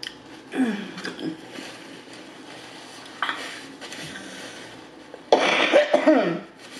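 A woman coughing and clearing her throat. There is a short bout about half a second in and a longer, louder one about five seconds in, into a paper napkin held to her mouth and nose.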